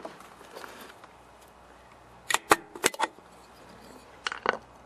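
Metal valve cover of a small OHV lawnmower engine being pried loose with a large flat screwdriver. It gives sharp metallic clicks and knocks in a quick cluster about halfway through and another near the end, as the cover breaks free of the gasket-maker seal.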